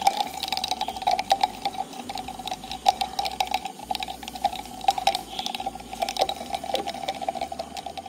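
Rapid, irregular crackling and popping from the 'lightning in a test tube' reaction, over a steady high-pitched hum. Potassium permanganate in concentrated sulfuric acid forms manganese heptoxide, which sets off small flashes, or mini explosions, in the alcohol layer above it.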